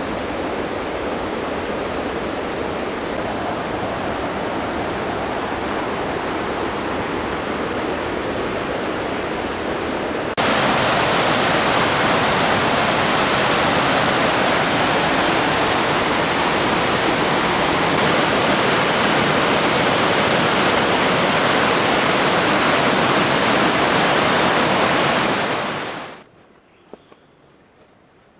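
Waterfall rushing, a steady dense roar of falling water with a thin high whine over it at first. About a third of the way in it jumps abruptly louder and fuller, then fades away near the end.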